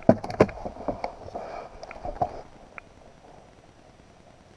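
Knocks and clicks of guns being handled at a wooden table, a rifle laid down on the boards and a shotgun picked up. A quick run of knocks in the first two seconds, then it goes quiet.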